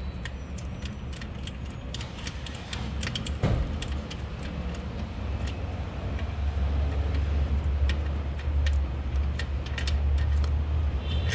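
Scattered light metallic clicks and clinks of hand tools working on the engine, with a single louder knock about three and a half seconds in. A low rumble runs underneath and grows louder past the middle.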